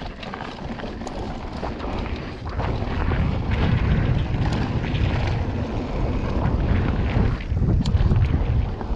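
Wind buffeting the microphone with tyre and trail rumble as a mountain bike rides down a dirt trail, the rumble growing louder about two and a half seconds in.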